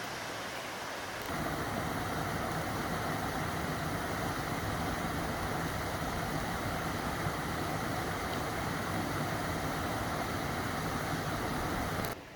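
Steady rush of flowing mountain water, getting louder about a second in and cutting off abruptly near the end.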